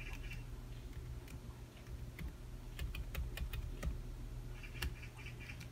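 Typing on a MacBook Air laptop keyboard: faint, irregular key clicks.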